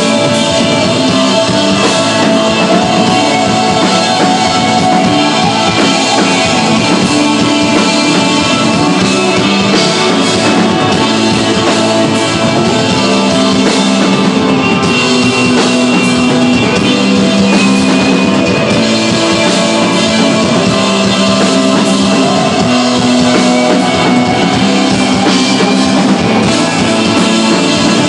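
A rock band playing live and loud: electric guitar and bass over a drum kit, a steady, unbroken instrumental passage.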